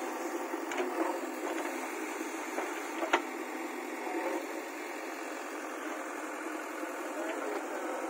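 JCB 3DX backhoe loader's diesel engine running steadily under load while the backhoe digs. A couple of sharp knocks come about a second in and again about three seconds in.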